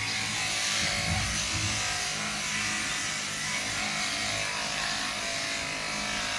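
Electric sheep shears running steadily while a sheep is being shorn.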